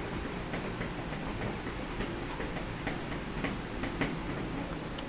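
Faint, irregular clicking of a computer keyboard and mouse, roughly two or three clicks a second, over a steady low background hiss.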